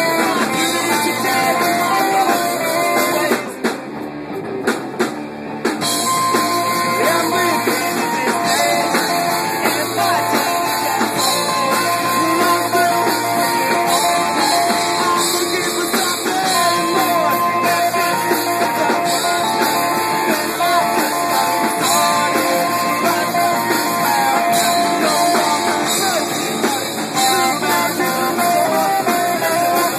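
Live rock band playing: electric guitars, bass guitar and drum kit, with a sung lead vocal. About three and a half seconds in the band briefly drops back, and the full band comes back in about two seconds later.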